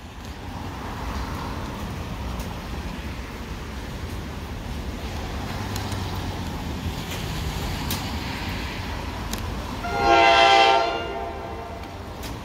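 An approaching electric passenger train gives one horn blast of about a second, near the end, as a chord of several pitched tones. Before it there is a steady low rumble.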